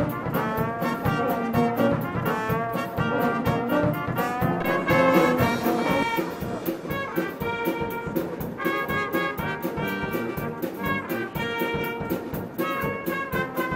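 A small brass band of trumpets, trombone, saxophone, tuba and drum kit playing a lively tune, with a steady drum beat under the horns.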